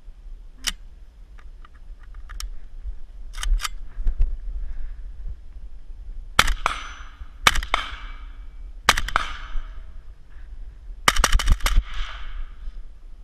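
AK-pattern rifle firing: three single shots about a second apart, then a quick string of several shots near the end, each trailing off in echo. A few sharp metallic clicks of the rifle being handled come before the first shot.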